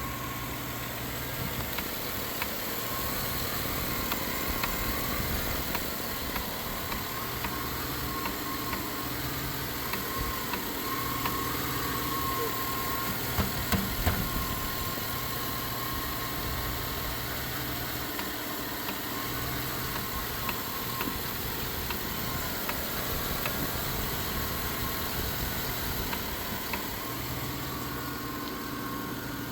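Rebuilt Chevy engine with a replacement carburettor idling unevenly, the idle rising and falling every few seconds, with a ticking noise over it. The idle hunting comes with the engine's reduced power.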